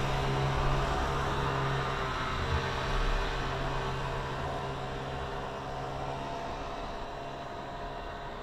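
A steady mechanical hum with a few low steady tones under a noisy hiss, slowly fading away.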